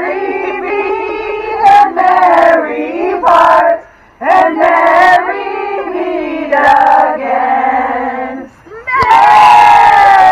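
Voices singing a slow song in long phrases with held notes, pausing briefly twice; near the end the voices come in louder and brighter.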